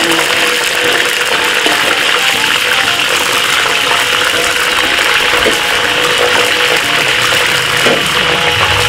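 Oil sizzling steadily in a wok as lemongrass and spices fry and a ladle stirs them, with faint background music under it.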